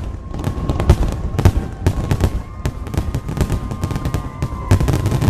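Fireworks going off: a fast, irregular run of sharp bangs and cracks, several a second, over a low rumble.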